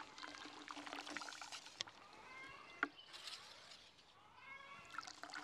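Water trickling and splashing faintly out of the breech of a double-barrel black-powder muzzleloading shotgun into a bucket of soapy water, forced out as a wet cleaning patch is pushed down the bore. A few faint squeaky rising-and-falling sounds come about two seconds in and again near the end.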